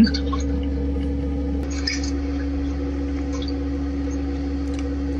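Phone video call heard through the phone's speaker: a steady low hum with a few faint splashes from a child swimming in a pool.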